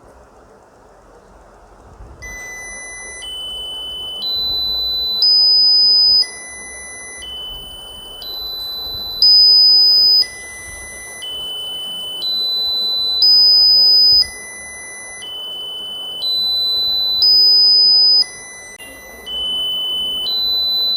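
Piezo buzzer driven by an Arduino Uno's tone() function, sounding a repeating ladder of four rising high-pitched tones, each held about a second. The sequence starts about two seconds in and cycles over and over. The highest step is the loudest.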